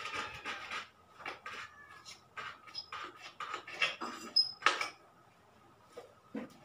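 Old silicone sealant being scraped off the edge of an aquarium's glass panel in short, irregular strokes, clearing the old seal so the leaking joint can be resealed. The scraping stops about two-thirds through, followed by a single light knock near the end.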